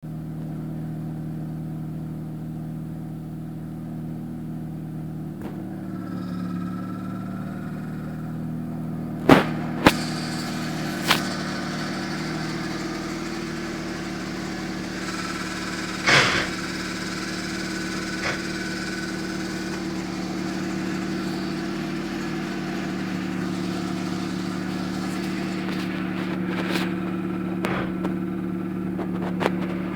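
Nissan Micra K11 engine idling steadily, with a faint grinding whine as the clutch pedal is pressed, supposedly from a worn clutch release bearing. Several sharp clunks come as gears are forced in with effort while stationary, a sign of the clutch not fully disengaging.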